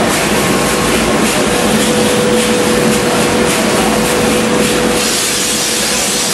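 Fish feed production machinery running in the plant: a loud, steady machine noise with a constant hum.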